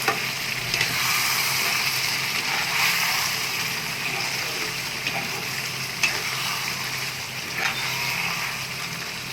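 Chicken frying in ghee in a kadai, a steady sizzle as it cooks down dry, with a few sharp clicks of the ladle against the pan as it is stirred.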